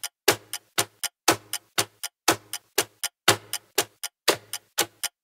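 Countdown timer's ticking clock sound effect: sharp clicks at a steady, even rhythm, about four a second, with the strongest tick once each second.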